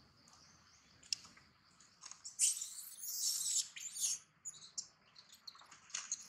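Young macaque screaming in a string of sharp, high-pitched shrieks, starting about two seconds in: distress cries as an adult macaque attacks it.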